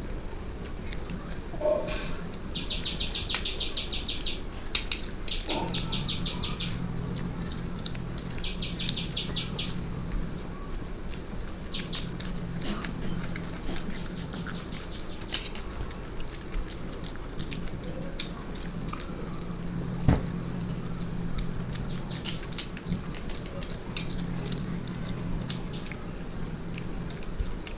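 Eating by hand: chewing, lip smacks and fingers clicking against steel plates as rice is mixed and scooped. In the first ten seconds come three short bursts of rapid, high-pitched chirping, each about a second long.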